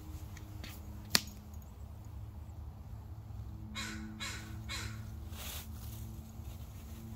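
A bird calling outdoors: three harsh calls in quick succession about four seconds in, then a fainter one, over a steady low hum. A single sharp click about a second in.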